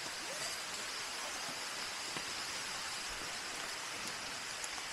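Steady, even hiss of background noise with no distinct sounds.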